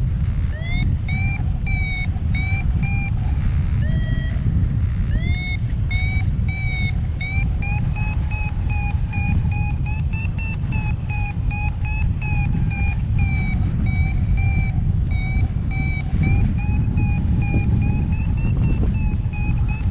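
Paragliding variometer beeping its climb tone, several short beeps a second, its pitch rising and easing as the lift changes, a sign the glider is climbing in rising air. Steady wind rushes over the microphone underneath.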